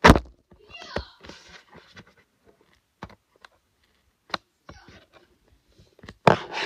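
Irregular clicks and knocks, with a loud knock right at the start, a few scattered ticks in the middle and a louder cluster near the end.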